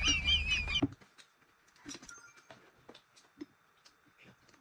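A high, warbling laugh cuts off about a second in. After it come only faint, scattered small clicks and taps of eating at the table.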